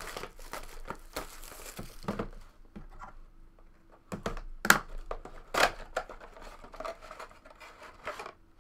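Cellophane shrink wrap on a trading-card box crinkling and tearing, then the cardboard box being opened and handled, with sharp knocks and scrapes from about halfway through.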